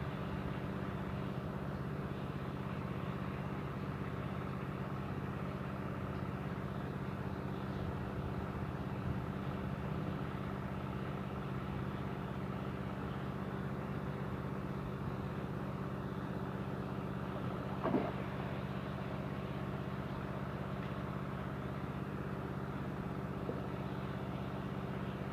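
Steady, even hum of the pond aerator's motor, unchanging in pitch. A short sharp sound cuts in once, about 18 seconds in.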